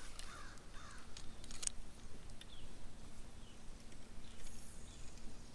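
Quiet outdoor ambience with a few faint short chirps and light ticks, and a faint low steady hum that comes in about two seconds in.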